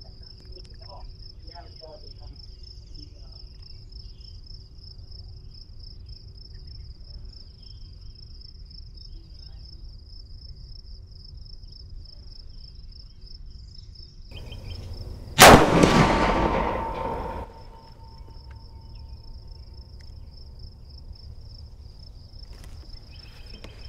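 A single shot from a Marlin 336 lever-action rifle in .30-30 Winchester, about fifteen seconds in, loud and sharp, its echo dying away over about two seconds. Insects keep up a steady, rapid, high-pitched pulsing chirr throughout.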